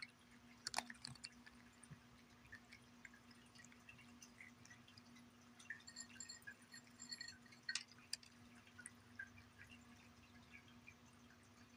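Cat chewing dry kibble from a ceramic saucer: faint, irregular crunches and small clicks, with two sharper clicks about a second in and about eight seconds in. The crunching thins out near the end. A steady low hum sits underneath.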